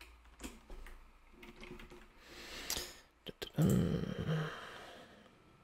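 Computer keyboard keystrokes and mouse clicks, scattered and soft. A brief louder low sound a little past halfway.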